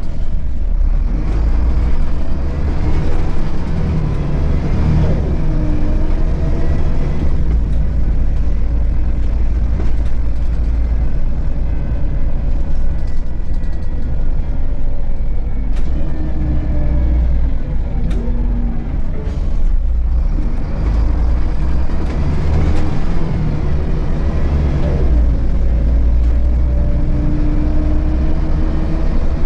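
Interior sound of a Volvo B7RLE bus, its rear-mounted six-cylinder diesel engine giving a deep steady drone while the bus drives. The engine pitch climbs a few seconds in and again near the end as it accelerates, and falls in between as it slows, with a couple of short knocks from the body over bumps.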